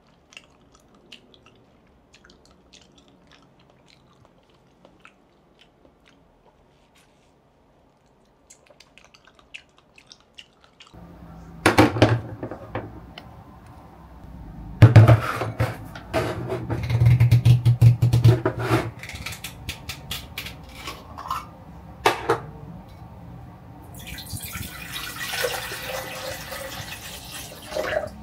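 Faint wet mouth sounds of jelly being sucked from a spout pouch. About eleven seconds in, an electric kettle is handled, with several knocks and clicks from its open lid and body. In the last few seconds water pours from a glass bottle into the kettle.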